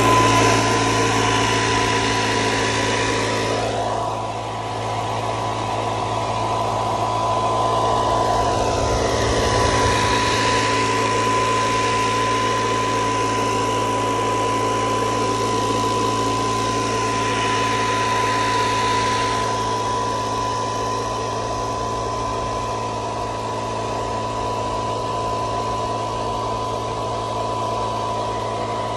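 Electric cart running with its air blower, blowing over tomato plants to shake the flowers for pollination. A steady hum with a thin whine runs throughout, while the rush of air dips, swells again, and eases after about 19 seconds.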